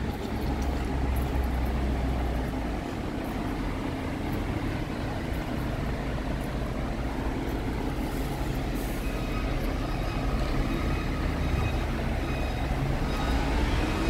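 Heavy diesel engine of construction machinery running steadily, a low continuous hum from a concrete pump truck and mixer working at a building site.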